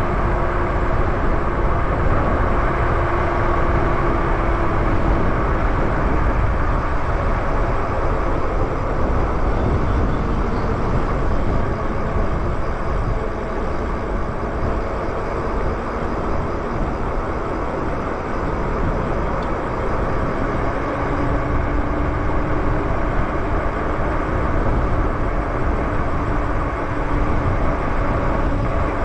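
Wind buffeting the microphone and tyre noise on pavement from an e-bike ridden at speed, a loud, steady rush.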